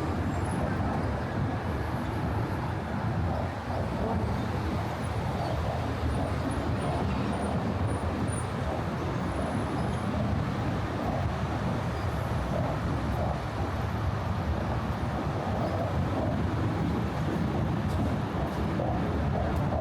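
Steady motor traffic noise from cars and other vehicles driving on the bridge's roadway, a continuous rumble of tyres and engines.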